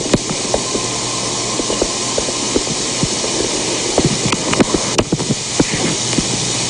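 Steady hiss of background noise, with scattered small clicks and ticks.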